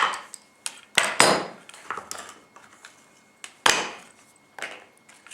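Metal clamp being loosened and taken off a wooden rifle stock: a handful of sharp metallic clanks and knocks on wood, the loudest about a second in and just before four seconds, with small clicks between.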